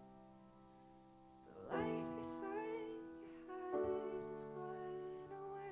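Grand piano playing slow, sustained chords: the first chord rings and fades, then a new chord is struck about a second and a half in and another around three and a half seconds, with a woman's voice singing over the second chord.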